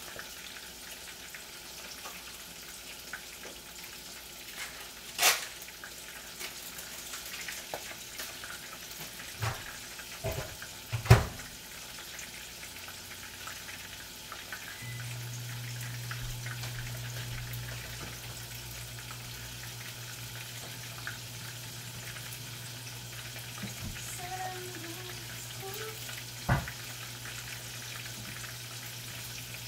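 Milkfish frying in hot oil, a steady sizzle, with a few sharp knocks of utensils or cookware, the loudest about a third of the way in. A steady low hum like a running appliance starts about halfway through.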